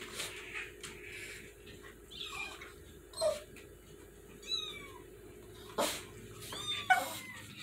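Kittens and their mother cat meowing: about six short, high-pitched mews with wavering pitch, a second or so apart. A light knock about six seconds in.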